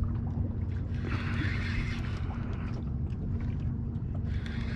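Wind on the microphone and water noise around a small boat at sea, over a steady low hum that runs throughout.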